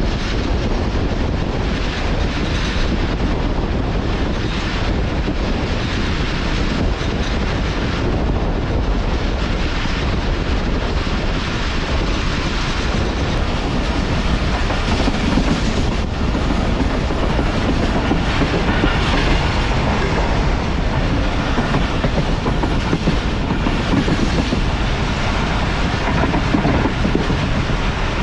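Passenger train running at speed: a steady rumble with the wheels clicking over the rail joints.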